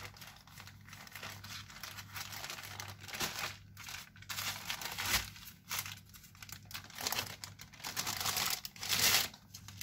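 A thin wrapping sheet crinkles and rustles in irregular bursts as it is unrolled and peeled off a rolled sponge cake. There is a louder rustle near the end.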